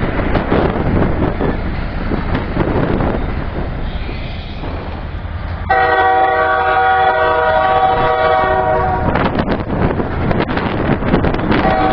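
A diesel locomotive's chord air horn sounds one loud, steady blast of about three and a half seconds, starting abruptly about halfway in, over a rumbling background. Near the end a fainter horn with a different chord answers, which the uploader takes for a horn exchange between two locomotives.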